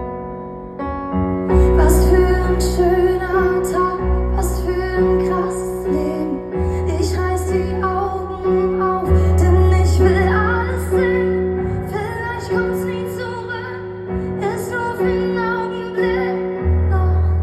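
Live pop music: a piano or keyboard plays chords over deep held bass notes while a woman sings, with short regular strokes in the high end.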